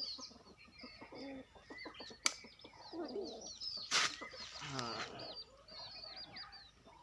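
Small birds chirping over and over in quick, high notes, with a sharp click a little past two seconds in and a louder short burst of noise about four seconds in.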